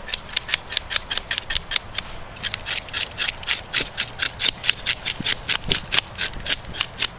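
Rapid, even scraping strokes, about five a second, as the scales are scraped off a sheepshead; there is a short break about two seconds in before the strokes resume.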